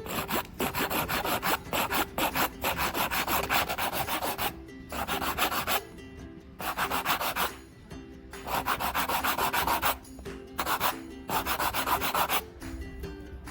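Nail file rasping back and forth across fingernails in quick strokes, a few per second, in runs of a few seconds with brief pauses between them.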